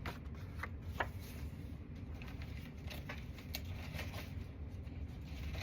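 Paper and craft supplies being handled on a table: a few faint clicks and light rustles over a low steady hum.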